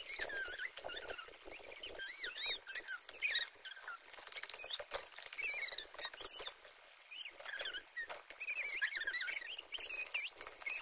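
Glossy laminated picture boards and a plastic tray being handled and slid against each other, giving many short, high squeaks that glide up and down, with light rustling and tapping in between.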